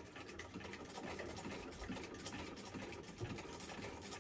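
Hand-cranked antique sewing machine stitching, a rapid, even clatter.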